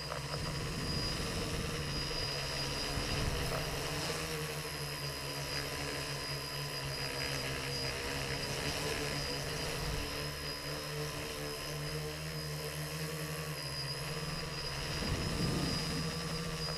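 Multirotor drone's electric motors and propellers whirring steadily, heard close from the craft's own onboard camera with a rush of air noise. The pitch shifts slightly now and then as it manoeuvres.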